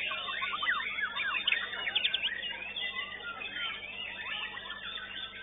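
White-rumped shama (murai batu) singing: fast, varied whistled phrases of rising and falling notes and chirps, with other contest birds singing over it.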